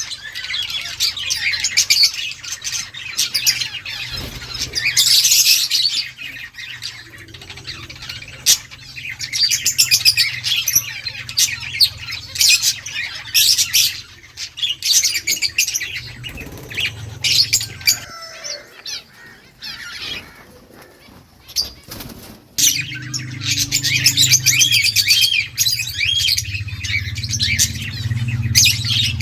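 Indian ringneck parakeet chirping and squawking in quick, repeated high calls, with a quieter stretch about two-thirds of the way through.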